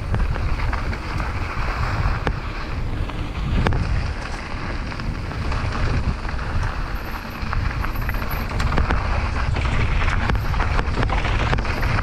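Wind buffeting the microphone of a mountain bike rider's camera, with the tyres rolling over a dirt trail and short rattles and knocks from the bike over bumps; a little louder in the last few seconds.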